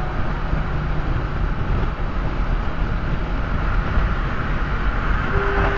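Steady road and wind noise of a car cruising at highway speed, a continuous rumble heaviest in the low end. Just before the end a steady pitched tone begins over it.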